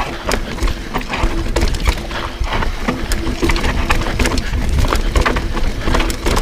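Mountain bike rattling over rough trail: rapid, irregular clicks and knocks from the bike jolting over the ground, over a steady low rumble.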